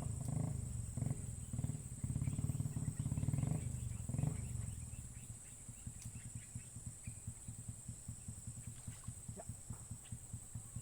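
Small single-cylinder engine running, then dropping about four and a half seconds in to a slow, even idle putter.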